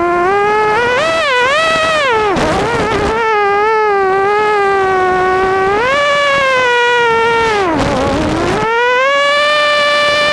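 Mini racing quadcopter's brushless motors whining, the pitch rising and falling with the throttle. Twice the whine drops sharply and turns rough, about two and a half seconds in and again around eight seconds in, then climbs back.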